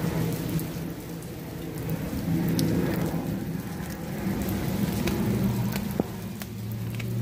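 Steady rain falling, with scattered sharp clicks and crunches from a Blue Bay Shepherd chewing a whole raw fish. A low steady hum runs underneath.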